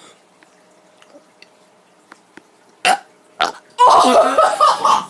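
A kid's single long, loud, wet burp about four seconds in, after two short throat sounds. The burp brings food back up, a near-vomit.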